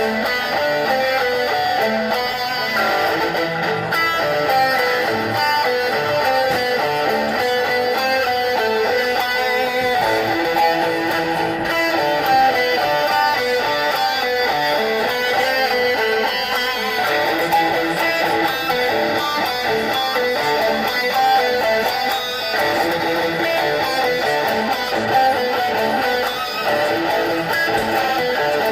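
Music with guitar, playing steadily throughout.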